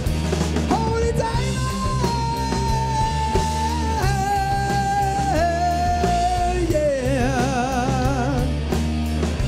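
Live rock'n'roll band playing, with a singer holding long notes with vibrato over bass and drums; one long held note steps down in pitch twice before sliding off.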